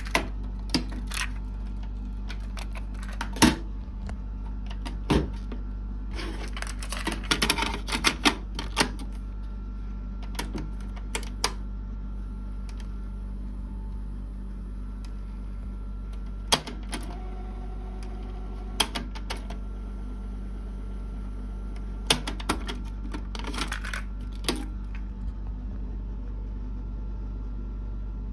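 Mechanical clicks and clunks from a Technics RS-D190W dual cassette deck as its piano-key transport buttons are pressed and its cassette doors are worked. The clicks come singly and in quick clusters, over a steady low hum.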